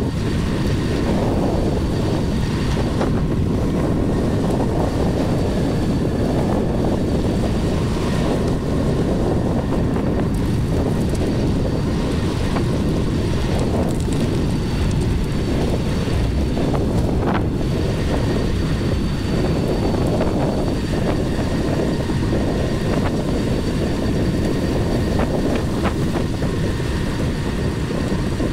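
Steady wind rush and low rumble on the microphone of a camera carried by a rider in motion, with a faint steady high whine underneath.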